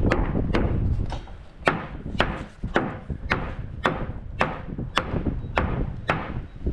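Hammer blows in a steady rhythm, about two a second, each a sharp knock. Wind rumbles on the microphone, heaviest in the first second.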